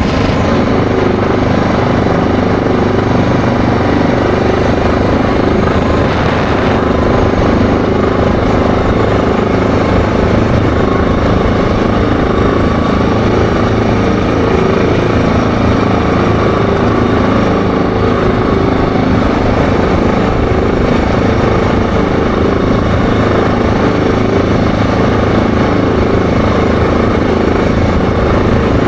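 ATV engine running steadily at cruising speed while riding along a paved road.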